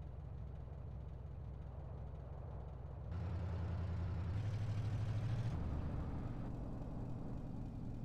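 A vehicle's engine running steadily with a low hum, getting louder about three seconds in.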